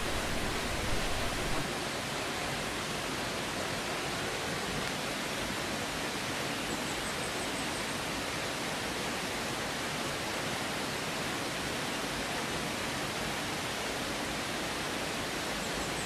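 Shallow rocky stream rushing over small cascades between boulders: a steady, even rush of water.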